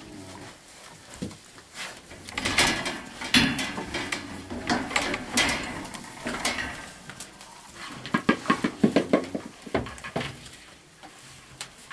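An animal rooting and shuffling through loose wood shavings, with irregular rustling and scuffing. About eight seconds in comes a quick run of sharp knocks.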